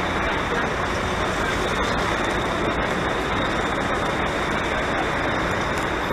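Steady traffic noise of a busy city street: an even, unbroken din of passing vehicles.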